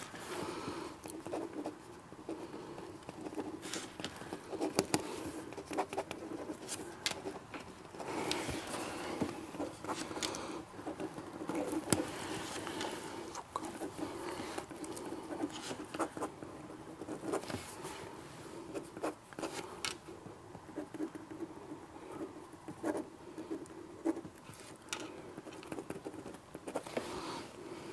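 Pens scratching across paper on a desk as two people write, an irregular run of small scratches and taps.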